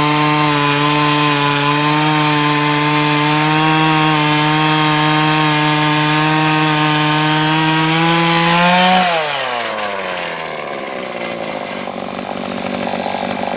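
Earthquake E43 one-man post-hole auger's 43cc two-stroke engine running steadily at high revs as the bit bores cleanly through clay with no roots to snag it. About nine seconds in the revs climb briefly as the bit comes free, then the throttle is let off and the engine winds down to a lower idle.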